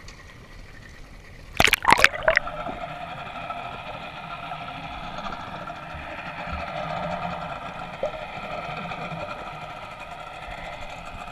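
Water splashes over the microphone about two seconds in as it goes under the surface. After that comes a steady, muffled hum of a boat motor heard underwater, made of several even tones.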